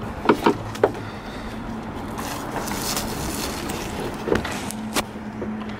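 Plastic brake-light housings being handled: a few light clicks and knocks, three close together at the start and two more near the end, over a steady background hum and hiss.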